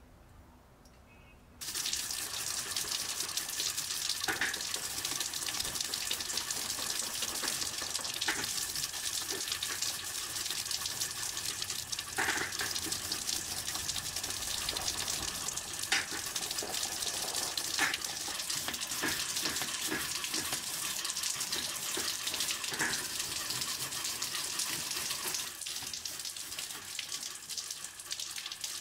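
A stream of running water splashing onto a rusty metal part and through a steel grate, starting about a second and a half in and running steadily, with a few short knocks and scrapes as the part is worked with a wooden stick under the water.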